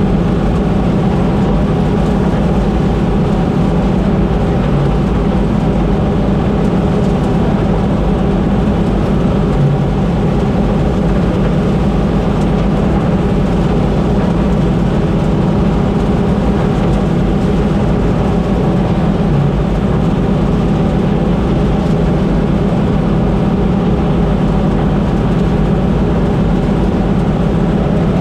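Combine harvester running steadily while harvesting: a constant drone of engine and machinery that does not change.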